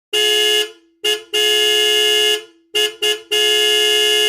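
Car horn honking in a pattern: a short beep, a short and a long blast, then two short beeps and a long blast that runs past the end.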